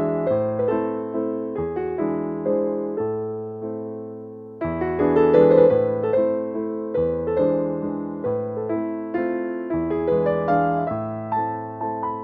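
Background piano music: a gentle melody of single struck notes over a steady bass line, dipping briefly about halfway through.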